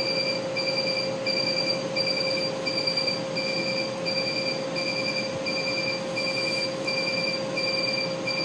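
Laser hair-removal machine beeping as its handpiece fires, about two short, high beeps a second in an even rhythm, over a steady hum and hiss.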